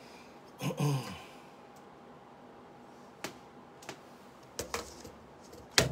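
A brief voice sound, falling in pitch, about a second in, then a few scattered clicks and knocks as a tablet and computer keyboard are handled, the sharpest knock near the end.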